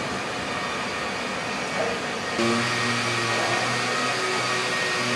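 Steady whirring and hum of car body-shop machinery and welding robots. Just over two seconds in it shifts abruptly to a slightly louder hum with a few steady tones.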